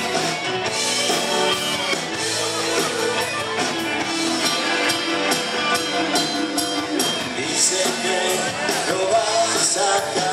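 Live rock band playing: drum kit, electric guitar and keyboard, recorded from the audience, with regular sharp drum and cymbal strokes.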